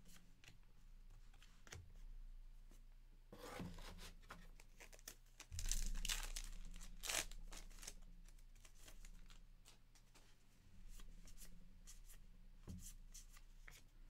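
Several bouts of tearing and crinkling as a 2023 Topps Allen & Ginter baseball card pack's foil wrapper is ripped open and the cards are handled, loudest about six seconds in. A faint steady low hum runs underneath.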